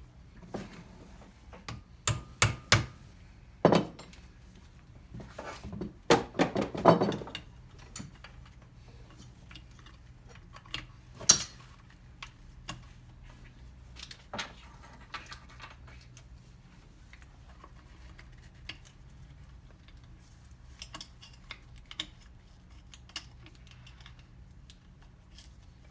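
Metal parts clinking and clicking as shifter cables are fitted to a transmission's shift linkage. A cluster of sharp clicks comes about two seconds in, a louder run of clanks around six to seven seconds, and one sharp click a few seconds later, then only scattered faint ticks.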